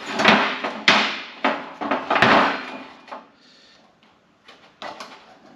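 Hand tools and a metal tube fitting clanking and knocking while O-rings are being changed on a truck's aftercooler coolant tube: about five sharp knocks in the first two and a half seconds, then a couple of faint clicks near the end.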